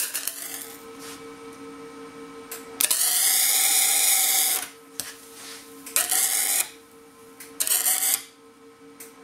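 Flux-core wire-feed (MIG) welder arc sizzling and crackling in bursts as steel pieces are tack-welded: a brief burst at the start, one of about two seconds, then two short tacks near the end.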